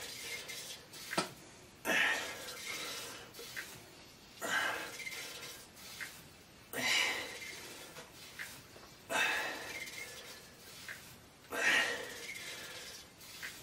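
A man's heavy breathing from exertion: five hard, drawn-out exhales about every two and a half seconds, with quieter breaths between.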